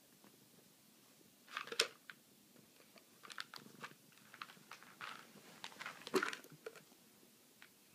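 A cat crunching dry cat treats: a string of irregular crisp crunches and clicks, loudest about two seconds in and again about six seconds in.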